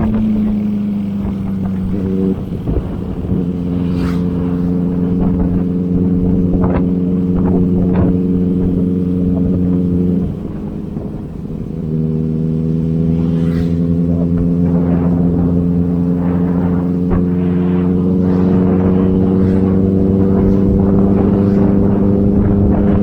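Inline-four sport motorcycle engine pulling under way, its revs climbing slowly. About ten seconds in the sound dips briefly and comes back at lower revs, an upshift, then climbs again.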